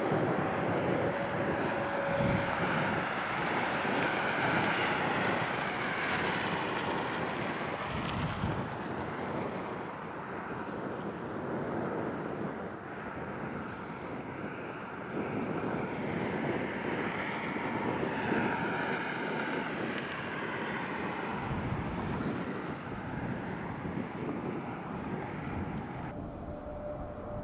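Jet airliner engines heard from the ground as a plane passes: a continuous rushing engine noise with whining tones that slowly rise and fall.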